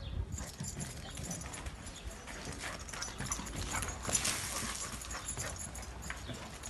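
Two dogs playing and scuffling on bare dirt ground: an irregular run of paw scrabbles, light thuds and rustles, with no barking.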